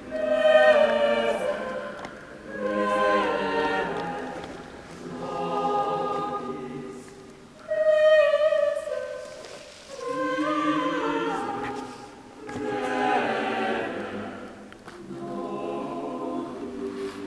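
Choir singing as a music track, in slow phrases that rise and fade every two to three seconds, with one sharper, louder entry about eight seconds in.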